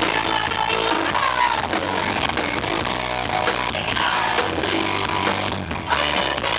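Live rock band playing, with singing and guitar, recorded so loud that the sound is heavily distorted.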